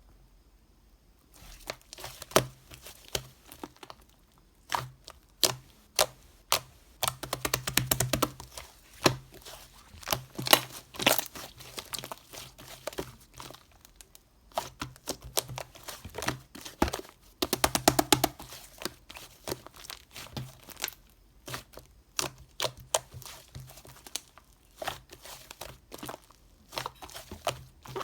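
Crinkling and crackling of something being handled, with many irregular sharp clicks and two denser, busier stretches, one about a quarter of the way in and one a little past the middle.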